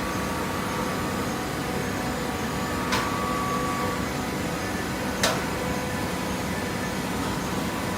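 Hydraulic fiber baler running with a steady hum from its motor and pump, broken by two sharp knocks about two seconds apart, the second louder.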